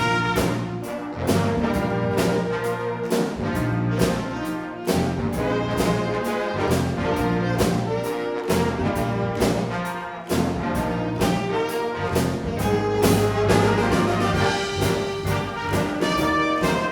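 Youth jazz big band playing, the brass section carrying the tune over bass and drums with a steady beat.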